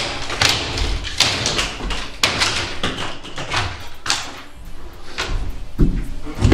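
Irregular knocks, taps and thuds inside a truck's empty box body as old light fixtures and their wiring are taken down and handled.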